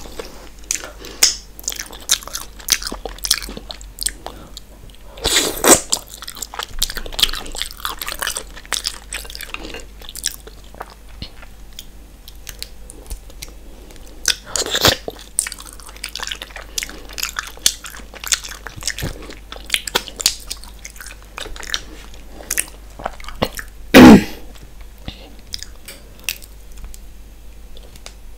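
Close-miked eating of mussels in sauce: wet chewing, lip smacks and sucking, with small clicks as mussel shells are handled and pulled apart. One much louder wet smack or slurp comes about three-quarters of the way through.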